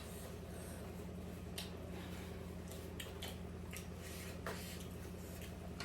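Eating sounds: scattered soft clicks and smacks of someone chewing momos, with a few sharper clicks about 1.6, 3 and 4.5 seconds in, over a steady low hum.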